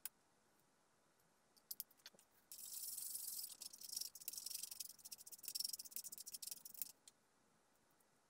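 A small tool scraping and stirring two-part adhesive on a flat plate: a dry, scratchy rasp full of small ticks for about four seconds, starting a few seconds in, with a few separate clicks before it.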